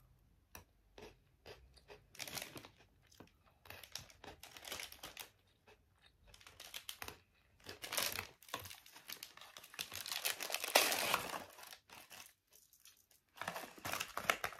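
Crunchy coated biscuit sticks being bitten and chewed close to the microphone, in scattered short crackling bursts, mixed with crinkling of the snack packaging.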